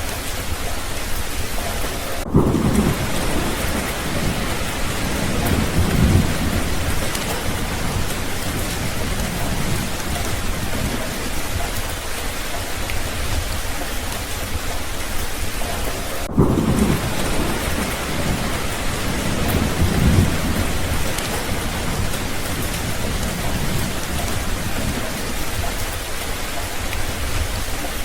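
Steady heavy rain with thunder: a low roll of thunder comes in about two seconds in and swells again a few seconds later, and a second roll follows midway through in the same way.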